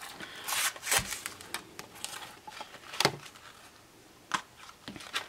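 Hot Wheels blister-card packaging, cardboard and plastic, being handled and pulled open by hand: scattered crinkles and sharp clicks, the loudest about three seconds in.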